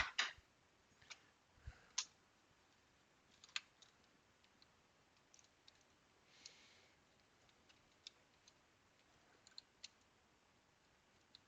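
Faint, scattered small clicks and taps, about a dozen at irregular intervals, from handling and fitting parts of a Sega Game Gear handheld console during assembly.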